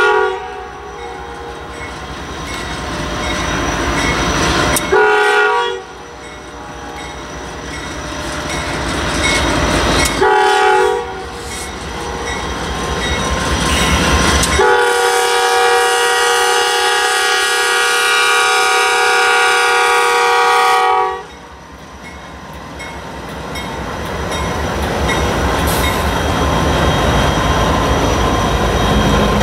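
Horn of Illinois Central 2700, a GE C44-9W freight locomotive, sounding a multi-note chord at a grade crossing: a one-second blast about five seconds in, a short blast near ten seconds, and a long blast of about six seconds that ends near twenty-one seconds. Under the horn, the diesel locomotives rumble past, and the freight cars' wheels click over the rail joints.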